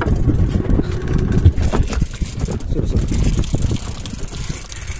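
A small boat's 15 hp outboard motor running underway, under heavy wind buffeting on the microphone that makes an uneven low rumble.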